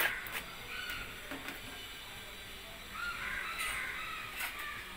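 A crow cawing a few times in the background, with a few light clicks of a plastic jar being handled.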